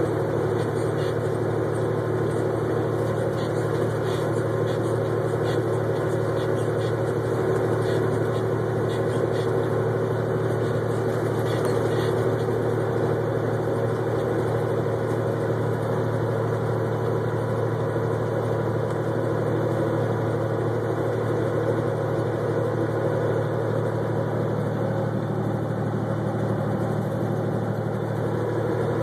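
Diesel semi-truck engine and road noise at highway speed, heard inside the cab: a steady, unchanging drone. Faint light ticks sound now and then during the first half.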